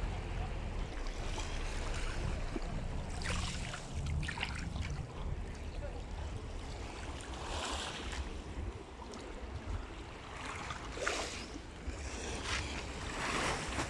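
Small, calm sea waves lapping over a pebble shore, a washing hiss swelling every few seconds. Under it runs a low rumble of wind on the microphone.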